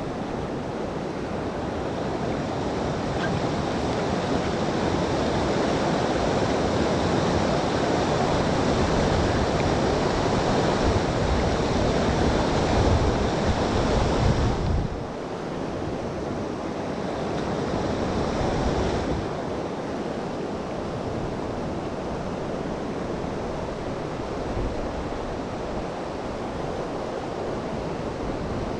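Steady rush of river water flowing over a rapid, with wind buffeting the microphone. The noise builds over the first half, then drops suddenly about fifteen seconds in.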